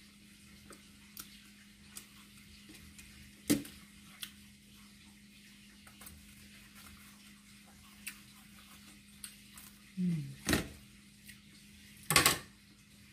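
Knife work on a hard, unripe green mango, with a few sharp clicks, then a loud crisp crunch near the end as a slice of the green mango is bitten into.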